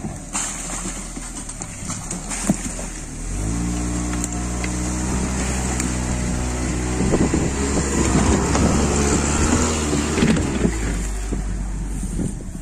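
Rosomakha all-terrain vehicle's engine revs up about three seconds in and runs steadily under load as the machine drives past, its big low-pressure tyres rolling over logs and brushwood. A single sharp knock comes just before the rev, and a stretch of rough knocking and crunching comes in the middle. The engine fades near the end.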